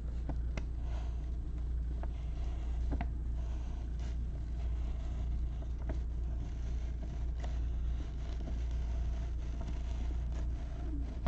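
Steady low hum with faint, scattered small clicks and rustles on top.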